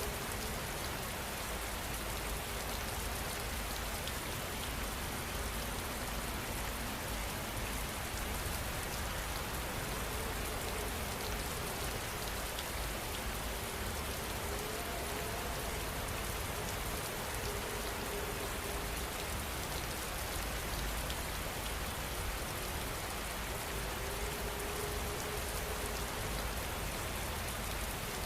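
Steady rain falling, an even, unbroken hiss of many drops at a constant level, with no thunder.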